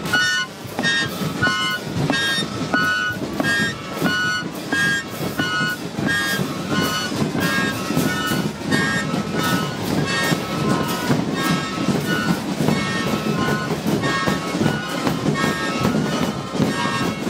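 Chino flutes (flautas de chino), cane flutes blown over and over in short, shrill, rasping blasts in a steady repeating rhythm, with a drum beating along.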